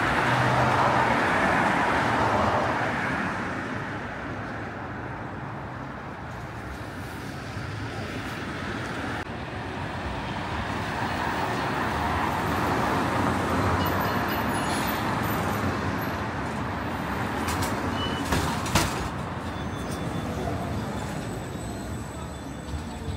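City street traffic: a steady rush of passing vehicles, loudest in the first few seconds, with a couple of sharp knocks about eighteen seconds in.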